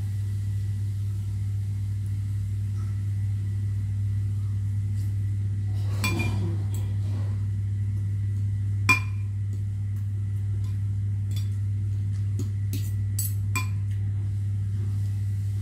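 Fork and spoon clinking and scraping against a ceramic plate while eating, a few sharp clinks with the loudest about nine seconds in. A steady low hum underlies it all.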